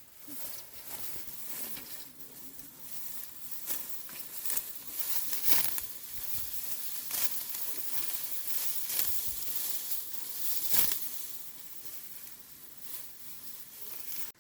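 Dry plant stalks rustling and crackling, in short irregular crunches with a steady hiss between them.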